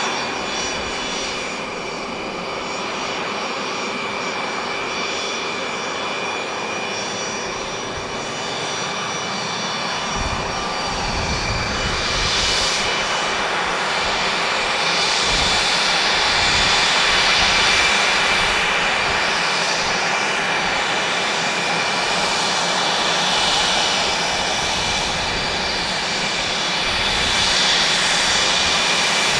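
Two Pratt & Whitney JT15D turbofan engines of a Beechcraft 400A business jet running at taxi power: a steady jet whine with several high whistling tones over a hiss. It grows louder about halfway through as the engine intakes swing round to face the listener.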